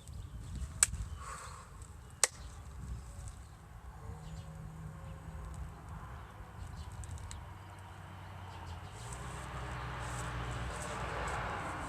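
Outdoor ambience: two sharp clicks about one and two seconds in over a low steady hum, then a broad rushing noise that grows louder over the last few seconds.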